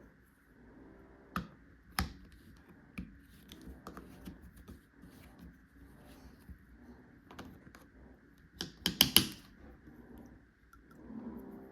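Plastic toy tools being handled: scattered light clicks and taps, with a quick run of four or five louder clacks about nine seconds in.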